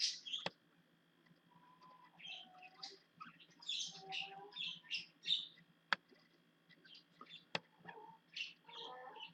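A small bird chirping and twittering in quick short bursts, with a few sharp clicks among them.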